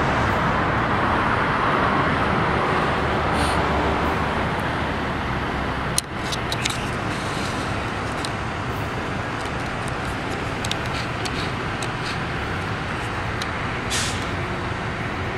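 Road traffic: a steady wash of passing vehicles and engine hum, louder in the first few seconds. There is a sharp click about six seconds in, followed by scattered small ticks.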